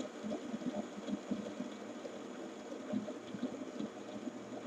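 Two fidget spinners spinning down on a tabletop, a faint low whir with a fluttering, throbbing quality.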